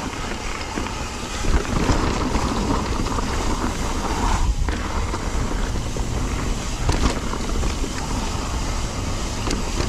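Mountain bike rolling fast down a steep rocky dirt trail: tyres rumbling over dirt and rock and the bike rattling, with wind buffeting the microphone.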